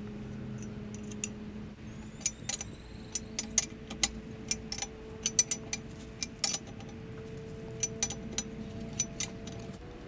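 Lug nuts being tightened onto wheel studs: a scatter of sharp, irregular metallic clicks and clinks as the nuts and the lug wrench knock against the studs and the steel wheel. A faint steady hum runs underneath.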